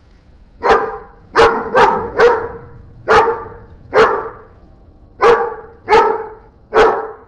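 AI-generated dog barking from Meta's Audiobox: nine loud single barks at an uneven pace, some in quick pairs.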